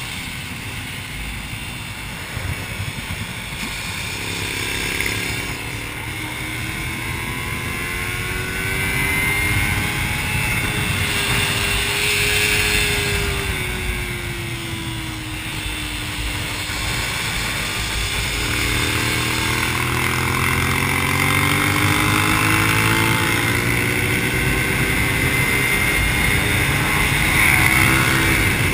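Suzuki SV650's V-twin engine under way at track speed, with wind rush over it. The engine note sags through the middle and then climbs steadily over the last third as the bike accelerates hard.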